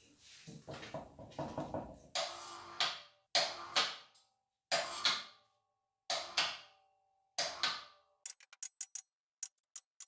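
Electric hoist jogged in short bursts from its hand pendant while lowering an engine block. After a couple of seconds of handling noise come about eight brief motor bursts, each starting sharply and dying away. Near the end is a quick run of short clicks.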